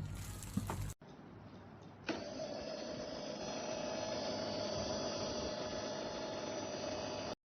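Electric coffee grinder's motor switched on about two seconds in, running with a steady whir and an even whine, then stopping abruptly near the end.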